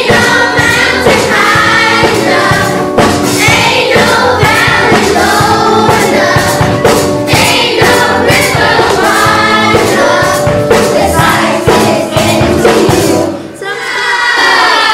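Children's chorus singing a jazz number together, backed by a live jazz trio with drums keeping a steady beat. The song breaks off about thirteen seconds in and a single voice takes over.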